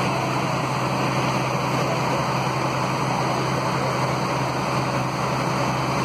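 Truck engine of a truck-mounted aerial platform idling steadily: an even low hum under a constant wash of noise.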